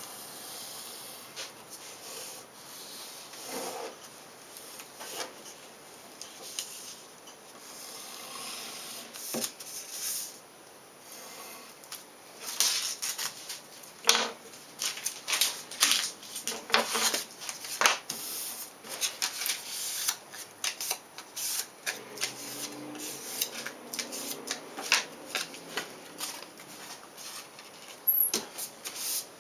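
Adhesive contact paper rustling and crackling as it is handled and its backing peeled. It starts as a soft rustle and becomes a busy run of short, crisp crackles about halfway through.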